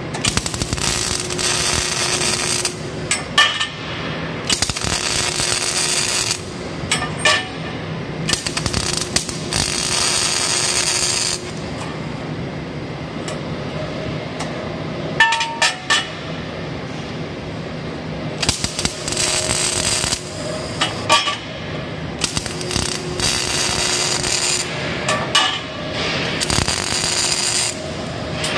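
MIG welding torch laying short welds on steel bars: the arc crackles and hisses in bursts of two to three seconds, about six times, with short pauses between. A longer lull comes in the middle, broken by a few metal clinks.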